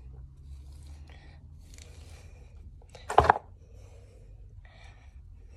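Hair and a fabric scrunchie being handled and pulled up into a hairdo, giving faint scattered rustling and brushing, with one brief loud sound about three seconds in.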